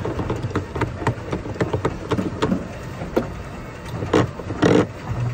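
Gym background noise: irregular knocks and taps, several a second at first and sparser later, over a steady low hum.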